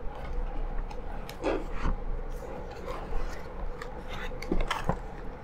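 Cardboard product box rubbing and scraping as it is handled and slid open by hand, with a few light taps.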